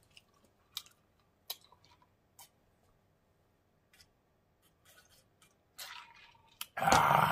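A person drinking from a plastic tumbler: a few soft mouth clicks and smacks, quiet swallowing, then a loud breathy exhale near the end after lowering the cup.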